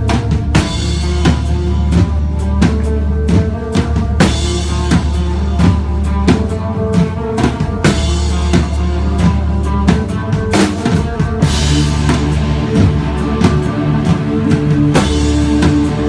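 Post-hardcore band playing live: a drum kit with rapid, busy kick, snare and cymbal hits over sustained bass and guitar notes, with swells of cymbal wash a few times.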